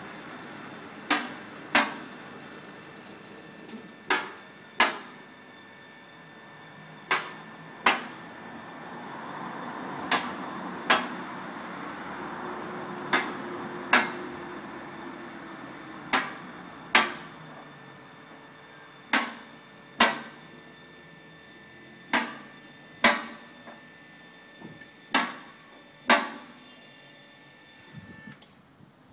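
Two-post hydraulic car lift rising under a separate hydraulic pump that runs steadily. Sharp metallic clicks come in pairs, one pair every three seconds or so, as the safety locks on the two posts ratchet past their notches. The pump cuts off near the end.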